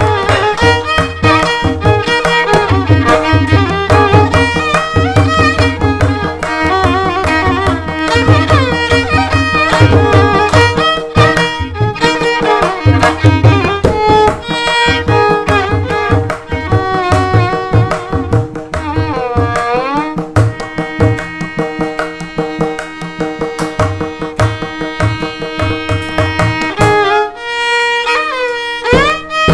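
Instrumental music in the style of Carnatic music: a violin plays a melody with sliding, ornamented notes over a steady drone, with hand-drum beats. The drums drop out briefly near the end.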